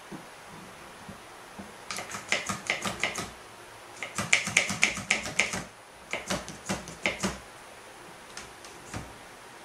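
A bar clamp being ratcheted tight across a wooden frame, its mechanism giving runs of sharp, quick clicks in three bursts, with a single knock near the end.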